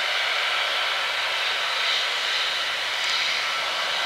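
Airbus A321neo's jet engines running with a steady hiss as the airliner moves along the runway.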